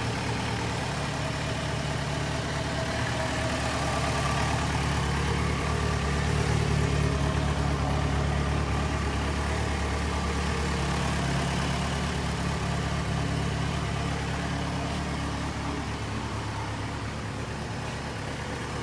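Yamaha XJ6F Diversion's 600cc inline-four engine idling steadily.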